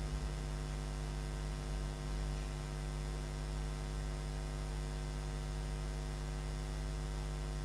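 Steady electrical mains hum: a low, even drone with a stack of evenly spaced overtones.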